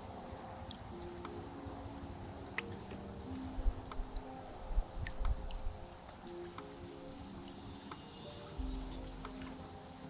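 Steady high-pitched chirring of insects along the river, with faint music underneath and a few soft low knocks about four to five seconds in.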